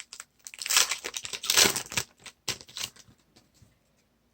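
A baseball card pack being opened and its cards handled: wrapper rustling, scraping and light clicks that fade out after about three seconds.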